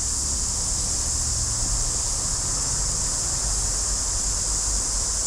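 A steady, high, unbroken chorus of insects, of the kind summer cicadas make, over a low steady rumble.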